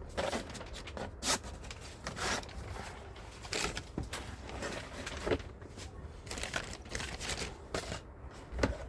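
Packaging of a hole saw set being handled and opened: irregular rustling, crinkling and short clicks and knocks as the box and case are moved about.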